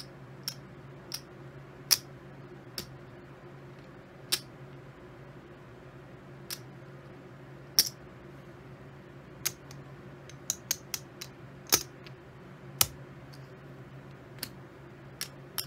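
Poker chips clicking against one another as they are picked up, counted out and stacked by hand: sharp, irregular clicks, with a quick run of several together, over a faint steady hum.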